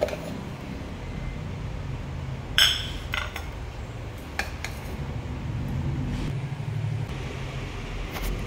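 Stainless-steel mixer-grinder jar clinking against a white plate as it is tipped and tapped to empty out ground chutney powder: one sharp clink about two and a half seconds in, then a few lighter knocks, over a steady low rumble.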